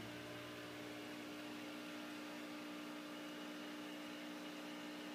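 Steady hum over a soft hiss from aquarium equipment (pumps, filters and air bubbling) running in the fish room.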